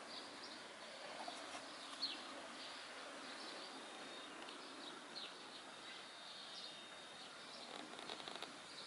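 Faint outdoor ambience: a steady hiss with scattered short, high bird chirps, one falling chirp about two seconds in and a few more near the end. A thin, steady high tone runs for a couple of seconds in the middle. The peacock is not calling.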